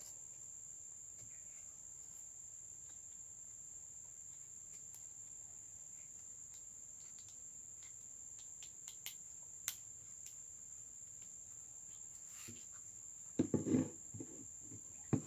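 Steady high-pitched trill of crickets, with faint scattered clicks from the carnauba-stalk piece being handled, and a brief louder knocking noise near the end.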